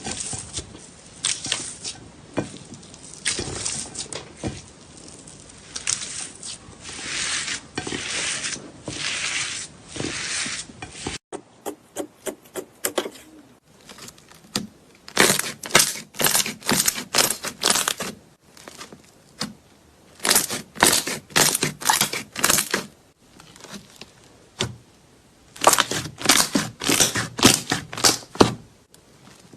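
Slime being squeezed and poked by hand, crackling and popping in quick runs of sharp clicks. After a change of clip about eleven seconds in, the clicking comes in three separate bursts.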